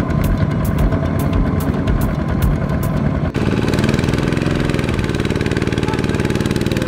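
Single-cylinder Kubota ZT155 diesel engine of a two-wheel walking tractor running under load, pulling a trailer of rice sacks through mud. Regular sharp ticks sit over it at first. About three seconds in the sound changes abruptly to a steady, even engine chug.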